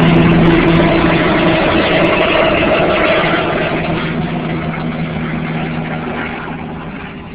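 Helicopter flying away after takeoff, its rotor and turbine sound fading steadily.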